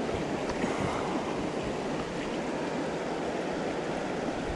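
River current running over rocks at the bank, a steady rushing wash of water.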